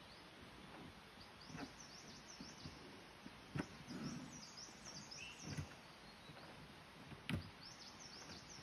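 Faint outdoor ambience with small birds chirping again and again, and a few soft knocks and scuffs, about four, as a giant panda cub rolls about in a plastic tub.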